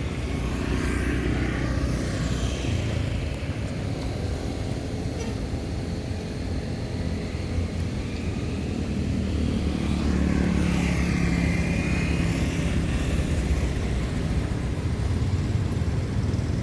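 Steady motor-vehicle engine rumble, like passing traffic, growing a little louder from about ten seconds in.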